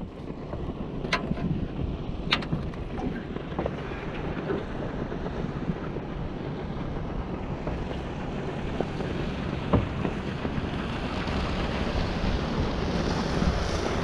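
Steady wind buffeting the microphone over a wash of river water around a small aluminium fishing boat, with two sharp knocks in the first few seconds and another about two-thirds of the way through. The wind hiss grows louder toward the end.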